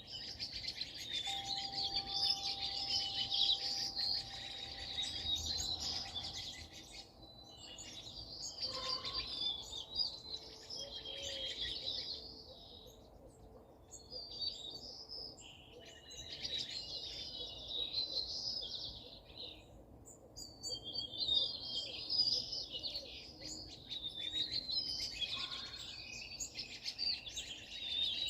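Many small birds chirping and twittering together in dense bouts, with brief lulls between them.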